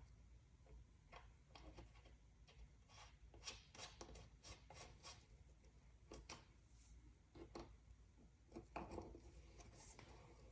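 Faint, irregular clicks and taps of small hard objects being handled, with a short rubbing scrape about nine seconds in.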